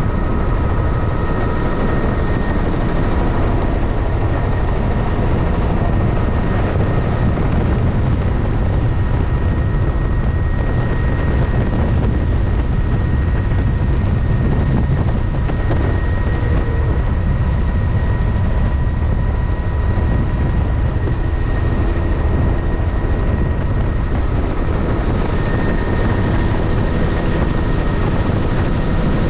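Helicopter in flight, heard from inside the cabin: a steady, loud drone of rotor and engine noise with a constant high whine over it.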